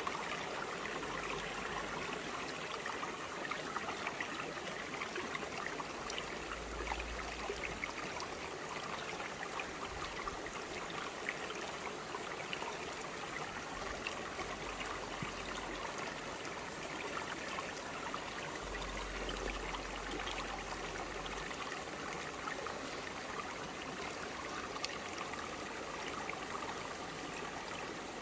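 Shallow, clear stream flowing over broad rocks: a steady mix of rushing water with many small trickles and splashes.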